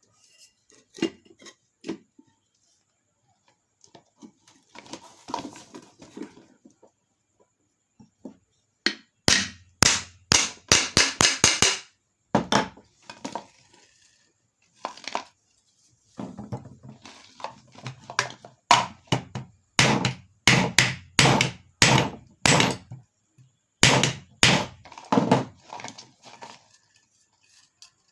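Repeated sharp knocks of the ceiling fan's lower housing cover being tapped down into place on the motor during reassembly: a few scattered knocks early, a quick run of blows about nine seconds in, and a longer run from about sixteen seconds.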